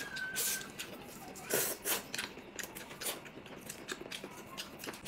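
Noodles being slurped and chewed: a few short, hissing slurps, the loudest about a second and a half in, between quieter chewing sounds.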